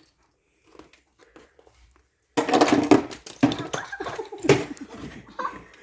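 Loud crunching and crackling of icy snow, starting a little over two seconds in after a near-silent start.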